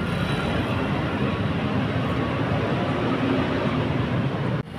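Street traffic: a coach bus's engine running as it pulls away, mixed with motorcycles and other traffic, a steady rumble that drops out abruptly just before the end.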